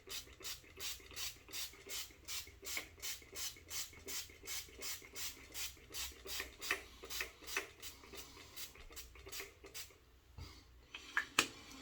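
Pump spray bottle of Thayer's cucumber witch hazel worked over and over, short hissing sprays at about three a second, stopping after about nine seconds. A couple of sharp clicks follow near the end.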